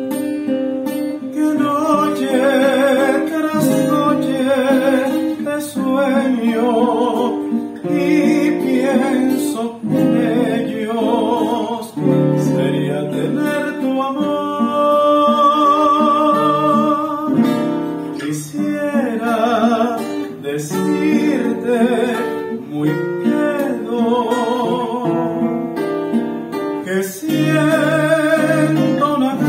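A man singing a Venezuelan vals, his voice held on long notes with vibrato, over a plucked acoustic guitar accompaniment.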